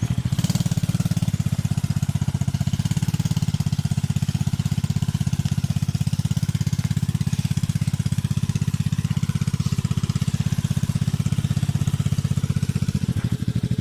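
A vehicle engine running steadily, a low, even, rapid pulsing that neither revs up nor dies away.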